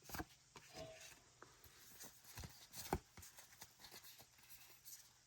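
Near silence with faint, scattered clicks and soft rustles of Pokémon trading cards being handled and slid one past another.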